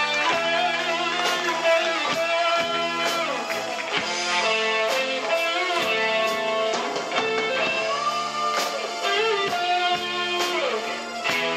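Live rock band playing: electric guitar carrying held, bending melody notes over bass guitar and drums, with regular cymbal strikes.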